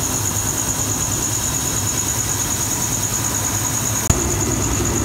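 Steady low hum and hiss of a lidded frying pan of beef curry cooking on the stove, with a single sharp click about four seconds in.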